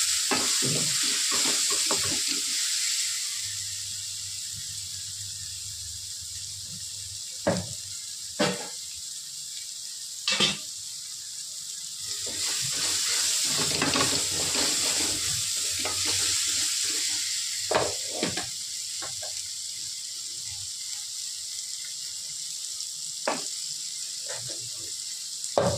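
Onion-tomato masala sizzling in hot oil in an aluminium kadai, stirred with a wooden spatula that scrapes and knocks against the pan several times. The sizzle is louder in the first couple of seconds and again about halfway through.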